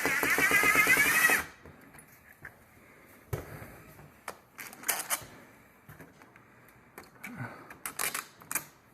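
A power drill running, then stopping abruptly about a second and a half in, followed by scattered light clicks and knocks of small hardware being handled.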